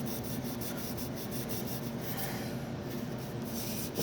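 Hand abrasive (a 3M pad or emery cloth) rubbing back and forth on a steel steering shaft in steady strokes, scouring off rust so a new bearing will slide on.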